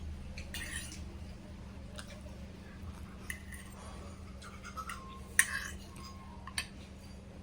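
Eating utensils clinking and scraping against a dish during a meal: a few scattered light clinks, the loudest a little past five seconds in, over a steady low hum.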